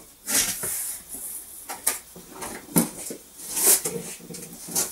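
Cardboard box being opened by hand: its flaps pulled open and rubbing against each other, giving several separate scrapes and rustles.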